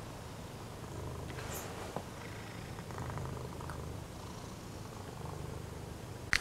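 Domestic tabby cat purring steadily close up, a low continuous rumble. A faint click about two seconds in and another near the end.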